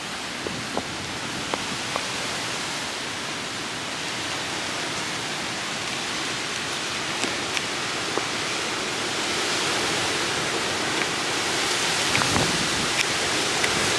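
Storm wind and rain ahead of a thunderstorm: a steady rushing noise that slowly grows louder, with scattered sharp ticks.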